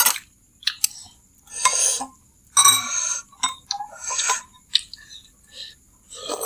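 Metal spoons and chopsticks clicking and clinking against ceramic soup bowls, with a few short slurps of chicken noodle soup broth and noodles between them.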